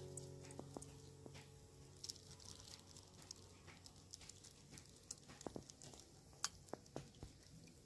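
Near silence with scattered faint clicks and taps from a steel bowl and a thin plastic bag being handled while beaten egg is poured. A steady pitched tone fades out in the first second or so.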